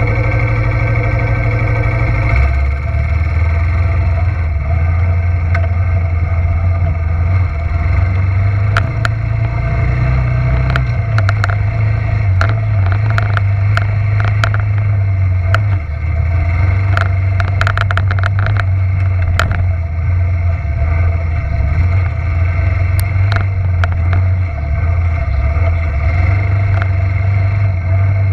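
1987 Suzuki Quadrunner LT300E ATV's single-cylinder four-stroke engine running under way on a dirt trail, its note shifting up and down a few times. Scattered sharp clicks and rattles come through, thickest in the middle stretch.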